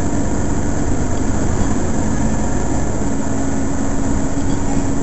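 Mercedes-Benz Citaro facelift city bus standing with its engine idling: a steady low rumble with a hum over it that drops away for a couple of seconds and comes back about three seconds in.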